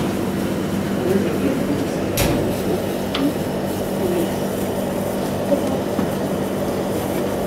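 Steady mechanical hum of air conditioning and refrigeration equipment, with a sharp click about two seconds in and a fainter one a second later.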